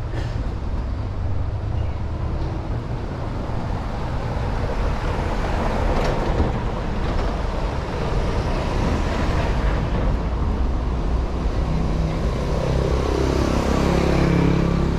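Street traffic: a steady rumble of car engines, with one vehicle passing close and growing louder near the end.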